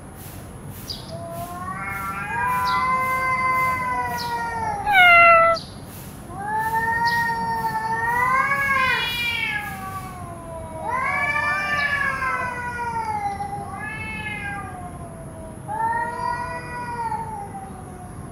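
Domestic cats yowling in a face-off: about five long, wavering caterwauls that rise and fall in pitch, the warning calls of an aggressive standoff. The loudest is a sharp upward-rising yowl about five seconds in.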